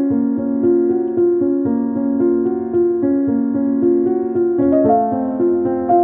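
Background music: a piano-like keyboard playing a steady run of notes, with a change of chord about four and a half seconds in.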